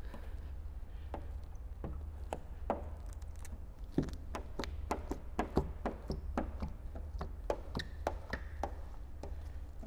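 Squeegee working wet paint protection film on a car hood: irregular sharp clicks and taps, about two to three a second and denser in the second half, over a low steady hum.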